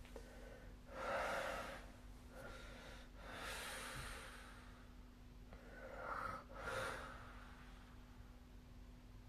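Soft, puffing snores of a sleeper ('pusuu, pusuu'): two breaths about five seconds apart, each a breathy rush in two parts, over a faint steady hum.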